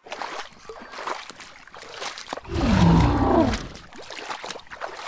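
Water sloshing, splashing and dripping as a figure is moved through shallow water. About two and a half seconds in comes one deep bellowing animal call, about a second long and dropping in pitch, dubbed in as the voice of the dicynodont Ischigualastia.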